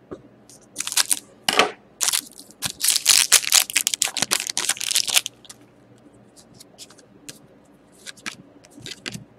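Crinkling and tearing of plastic or foil trading-card packaging as hockey cards are handled, dense for about four seconds, then a few light clicks and taps.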